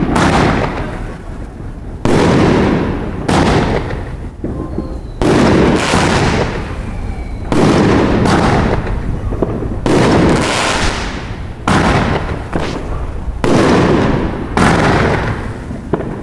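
Aerial fireworks shells bursting overhead in a rapid series, about a dozen loud bangs roughly one every one to two seconds. Each bang trails off in a fading crackle and hiss.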